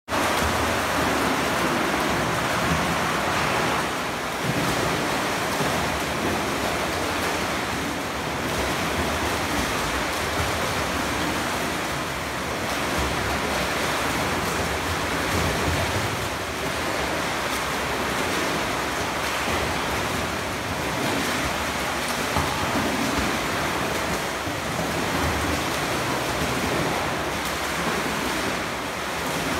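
Steady splashing of two swimmers doing front crawl in an indoor pool, arms stroking with hand paddles and legs kicking with fins, a continuous wash of churning water.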